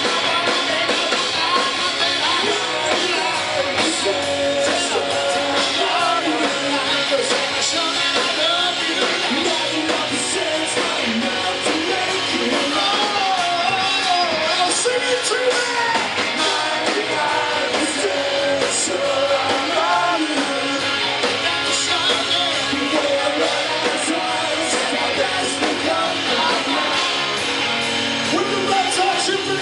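Live rock band playing with electric guitar and a singing voice, heard loud from among the audience.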